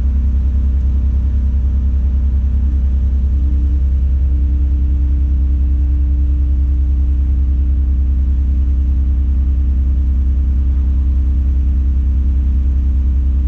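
Diesel engine of a Tadano 180G-5 all-terrain crane running steadily, heard from inside the operator's cab as a deep, even drone. A steady higher hum joins about three seconds in and holds.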